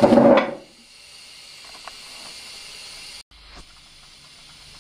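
Gas burner hissing steadily under a Stuart 501 model steam boiler as it heats the water, with a brief louder noise right at the start. The hiss cuts out for a moment about three seconds in, then carries on.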